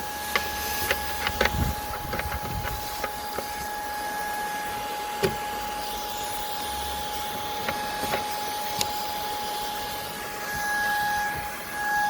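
Shark IZ251 cordless vacuum running with a steady whine over a rush of air, with scattered clicks and taps of its detailing nozzle against the car's interior trim. The whine swells briefly near the end.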